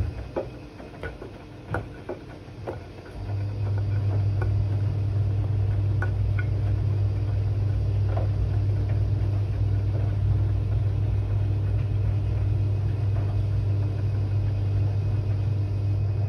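Washing machine drum motor running during the wash on a quick 30 °C programme. It stops for about three seconds at the start, with a few clicks in the pause, then starts again and turns steadily, the usual pause between direction changes while tumbling the wash.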